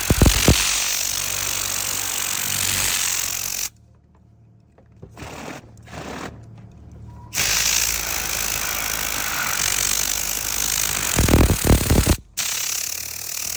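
A powered cleaning machine running with a loud, steady hiss, with heavy low thumps near the start and again about eleven seconds in. The sound cuts out suddenly for a few seconds at about four seconds in and briefly near the end.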